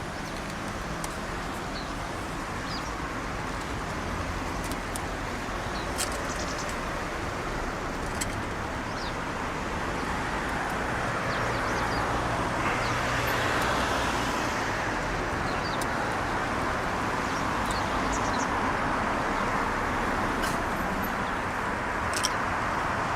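Steady urban road-traffic noise that swells for a few seconds near the middle as a vehicle passes, with scattered short, high bird chirps over it.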